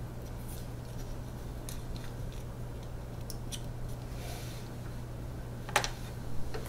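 Faint small clicks and scrapes of a hex key turning in the tensioner screw of a Bambu Lab P1P extruder, backing the tensioner off, with a sharper click near the end. A steady low hum runs underneath.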